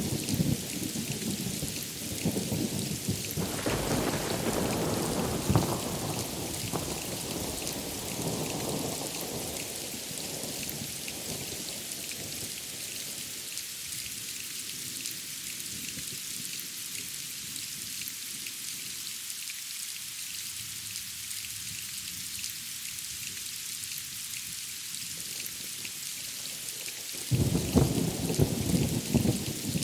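Steady heavy rain with a rolling thunder rumble that slowly fades out over the first third. Near the end a new loud clap of thunder breaks in.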